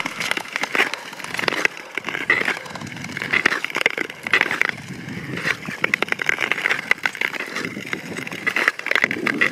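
Long-distance (Nordic) ice skates gliding and scraping over frost-covered natural lake ice, a swelling scrape about once a second as each stroke is pushed off, with steady crackling of frost crystals under the blades.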